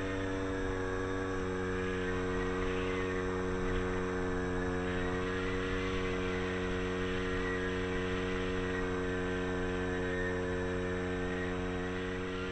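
Electric outrunner motor and propeller of a balsa Tiger Moth RC biplane, heard close up from a camera mounted on board. It gives a steady whine at constant throttle, with wind noise over the microphone.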